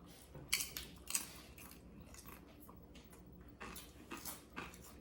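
Eating at a table: a few short crunches and clinks from food and cutlery, with quieter chewing in between.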